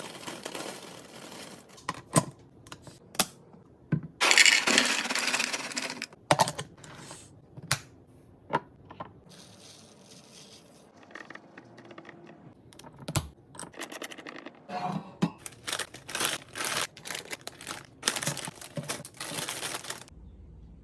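Plastic packaging crinkling and rustling, with many sharp clicks and taps of items being handled and set down while restocking. The loudest rustling comes about four seconds in, and a busier run of clicks and rustles comes near the end.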